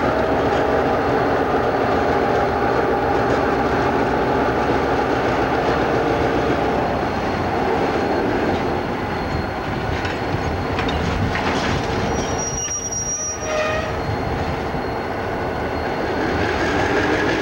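Diesel locomotives running with a steady, droning engine sound. About 12 seconds in comes a brief high-pitched squeal of wheels on rail.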